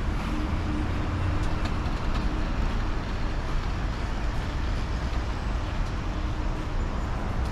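BYD B12D battery-electric double-decker bus driving slowly past at close range while turning, heard as a steady low rumble of tyres and road noise rather than an engine note.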